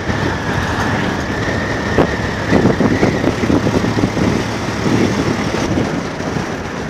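Vehicle driving along a paved road: steady engine and road noise with a faint high whine, and a few knocks and rattles about two to three and a half seconds in.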